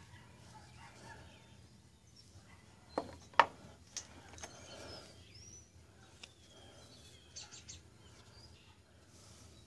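Flint pieces knocking against each other and against the wooden rail as they are handled: two sharp knocks about three seconds in and a lighter one just after. Faint bird calls can be heard in the background.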